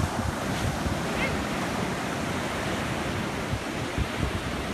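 Ocean surf washing onto a sandy beach, a steady rushing hiss, with wind buffeting the microphone in low, irregular rumbles.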